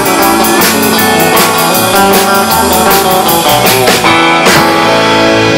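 Live country band playing an instrumental passage with no singing: electric guitars over bass guitar and a drum kit keeping a steady beat.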